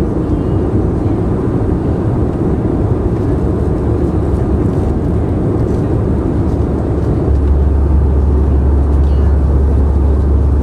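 Airbus A320 cabin noise in flight: a loud, steady rush of engine and airflow noise with a deep hum underneath, which grows stronger about two thirds of the way through.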